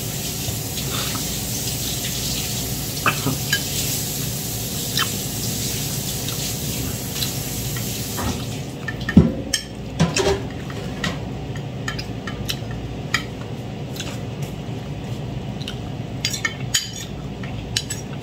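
Metal spoon clinking and scraping against ceramic bowls and a plate during a meal, with a louder knock about nine seconds in. Kitchen tap water runs in the background and shuts off about eight seconds in.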